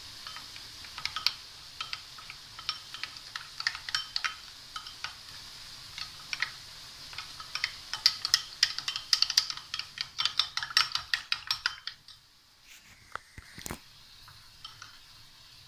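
Metal spoon clinking and scraping against a white ceramic bowl, stirring cornflour and water into a thin batter. The clicks come fast and thick for most of it, then thin out to a few over the last few seconds.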